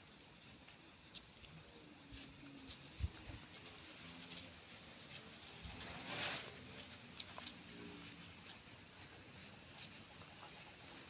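A small dog moving about: scattered light taps and clicks, with one short breathy noise about six seconds in.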